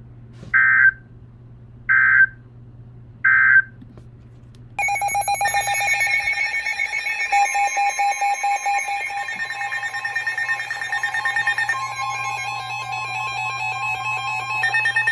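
Emergency Alert System data signal: three short, evenly spaced bursts of warbling data tone, the end-of-message code that closes the flood watch. About five seconds in, a loud, steady, many-toned EAS attention alarm starts and keeps sounding, marking the start of the next alert.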